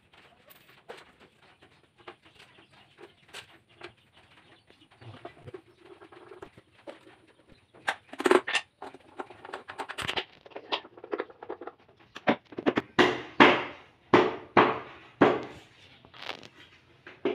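Hammer driving small nails into a wooden board: light taps at first, then a run of hard, ringing blows from about eight seconds in, roughly one or two a second.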